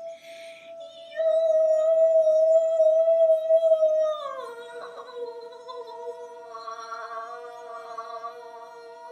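A wine glass rubbed at its rim rings on one steady tone. After a short hiss, a woman's voice joins about a second in with a long note close to the glass's pitch, then slides down to a lower held note about four seconds in.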